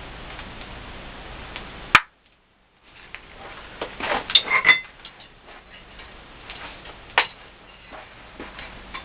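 A blacksmith's metal hand tools tapping and clinking on iron over a steady hiss. A quick run of ringing metallic taps comes about four to five seconds in, and a single sharp strike comes about seven seconds in. The sound cuts out briefly after a sharp click about two seconds in.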